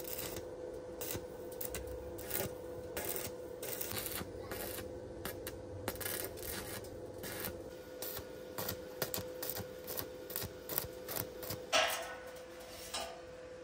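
Irregular clicks, taps and short scrapes, with one louder knock near the end, over a steady hum.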